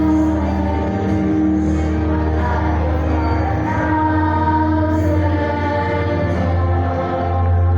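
Choir singing long held notes in harmony over a steady low accompaniment.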